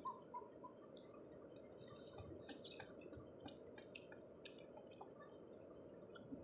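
Near silence: faint outdoor ambience with scattered light clicks and ticks.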